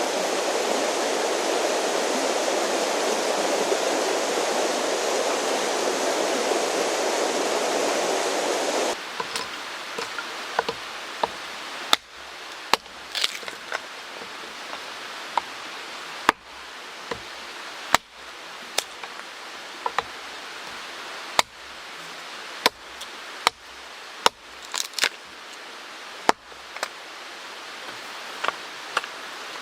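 Mountain stream flowing steadily, cut off abruptly about nine seconds in. Then a wood campfire crackles, with sharp, irregular snaps and pops over a faint background hiss.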